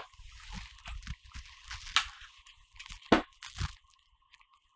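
Handling noise from metal camera shoulder-rig parts being picked up and moved over a wooden table: low rumbling bumps with a few sharp clicks and knocks, the sharpest about two seconds in and again about a second later.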